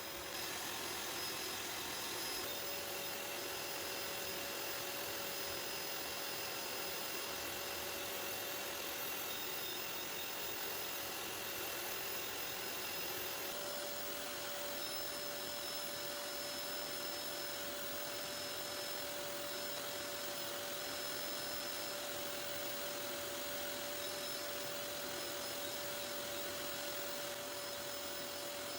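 Vacuum cleaner running steadily as it is worked over a sofa, its motor tone stepping up slightly twice.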